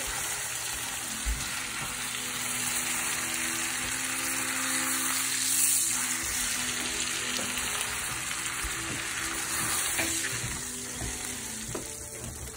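Butter-aged sirloin steak searing in a stainless steel skillet of foaming butter: a steady sizzle of hot fat throughout.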